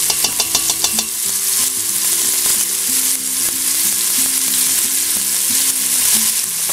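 Red kidney beans, garlic, red bell pepper and green onions sizzling as they fry in olive oil in a stainless steel pot, a steady hiss. A quick run of light clicks in the first second.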